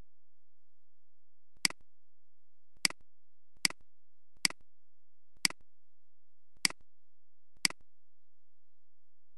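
Computer mouse clicking: seven short, sharp clicks at uneven intervals, roughly one every second, with silence between.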